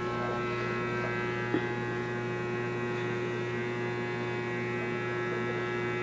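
Electric hair clippers running with a steady, even buzz. There is one light tap about a second and a half in.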